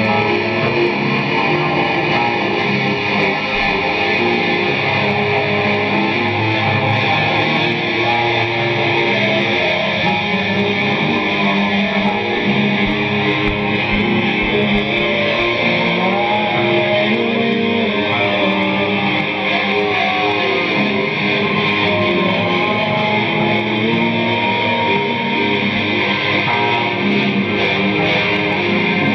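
Live noise music: a loud, unbroken wall of layered distorted drones and tones, with a few wavering higher tones sliding through about halfway.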